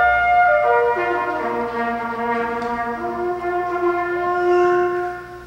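Solo trumpet playing a slow melody of long held notes, the last held for about two seconds before it stops near the end.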